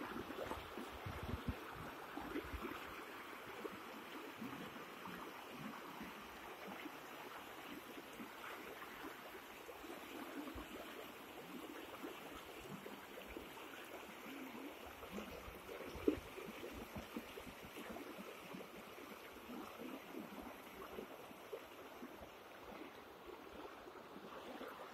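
Floodwater flowing fast in ripples over a road and through flooded fields, a steady rushing of water. A few low thuds on the microphone in the first couple of seconds and one brief click later on.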